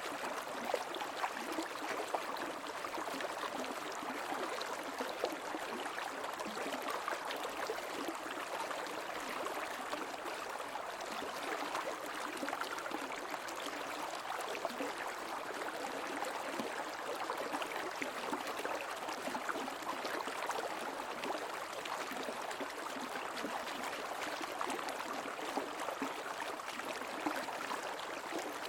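Creek water flowing and babbling, a steady rushing with fine flickering splashes.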